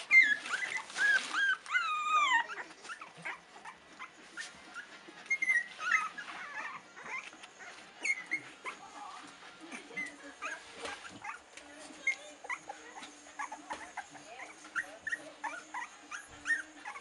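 Litter of 19-day-old Staffordshire Bull Terrier puppies whimpering and squeaking: a run of loud, wavering high cries in the first couple of seconds, then short scattered squeaks.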